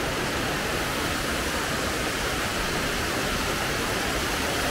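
Rushing water, a steady, even hiss with no change in level.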